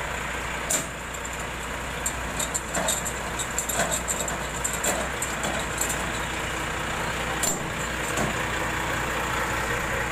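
Truck engine running steadily at idle, with scattered clicks and crackles from the grass rustling against the phone.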